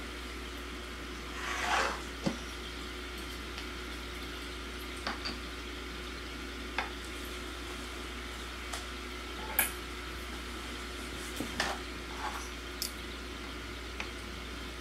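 Aquarium aeration running: air stones bubbling as a steady fizz over a low pump hum. Scattered small clicks and taps come through it, with a brief rustle about two seconds in.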